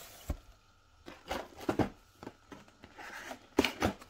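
Box and packaging of a Wahl cordless detailer being opened by hand: several sharp knocks and taps, with quieter rubbing and rustling of packaging between them.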